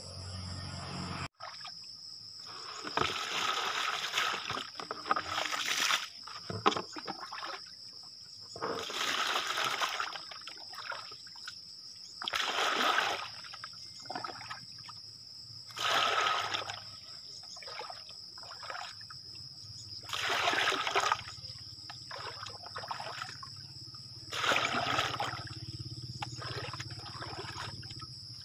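Water scooped from a shallow pool with a plastic dipper and poured out in splashes, one pour about every three to four seconds, each lasting about a second.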